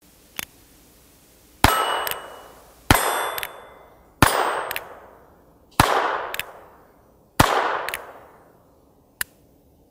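Five shots from a North American Arms single-action .22 LR mini revolver, fired about a second and a half apart, each followed by a long echoing tail and a smaller sharp click about half a second later.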